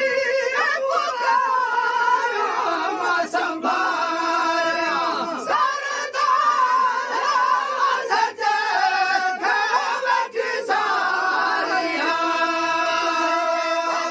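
Group of men singing a Sindhi molood together, unaccompanied, holding long wavering notes with the lead and chorus voices overlapping.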